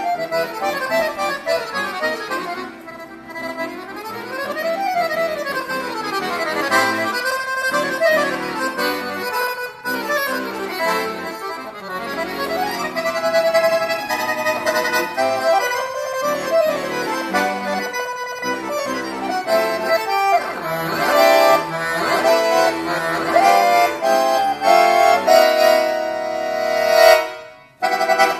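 Solo piano accordion playing a classical piece: fast runs that climb and fall, then full chords with the bellows pushing the sound. Near the end a held chord swells and breaks off suddenly, followed by a brief closing phrase.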